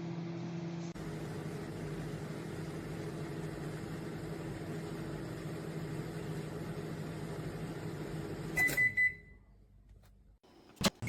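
Candy Smart CMG2071DS microwave oven running with a steady hum, which stops about eight and a half seconds in, followed at once by three quick high beeps signalling the end of the cycle. Two sharp clicks come near the end.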